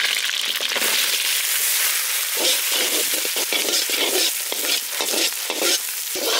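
Shallots and capsicum sizzling loudly as they go into hot butter in a black wok. From a couple of seconds in, a metal ladle stirs them in repeated strokes over the steady sizzle.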